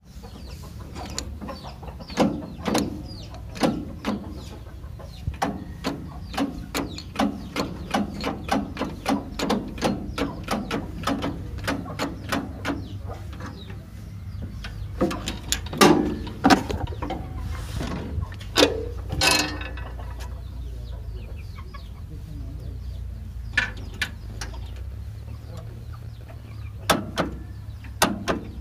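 Chickens clucking in short repeated calls, often two or three a second, with one longer call about two-thirds of the way through, over a steady low hum.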